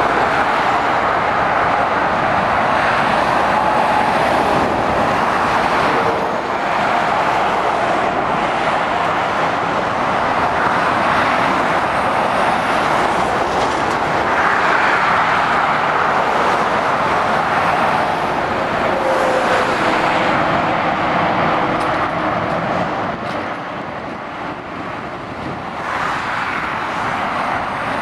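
Steady motorway traffic noise of lorries and cars passing at speed: tyre noise on the road with heavy diesel lorry engines, dropping a little for a couple of seconds near the end.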